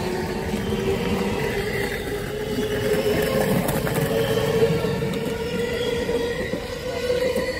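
Commuter electric train pulling out of the platform. It runs with a steady rumble and a motor whine that rises slowly in pitch as it gathers speed.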